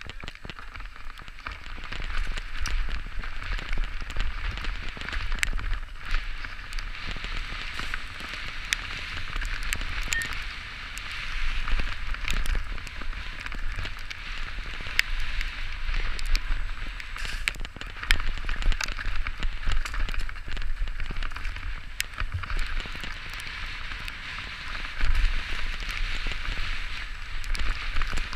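Santa Cruz Bronson mountain bike descending a wet dirt trail: a steady crackling hiss of tyres over wet dirt and gravel with scattered clicks and knocks, over a low wind rumble on the helmet-mounted camera's microphone.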